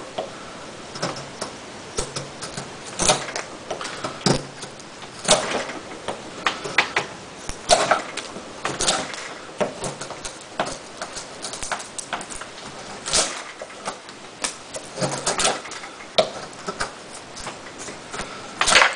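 Folding knife with an S30V steel blade carving shavings off a wooden post: a series of sharp, irregular cutting strokes, roughly one a second. The blade bites easily, taking off big pieces with much less effort.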